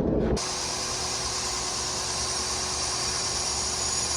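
Grinder running steadily on the steel of a forged railroad-spike knife: an even, hissing grind with a faint steady motor hum. It starts abruptly shortly after the beginning, as the blade's basic shape is ground in.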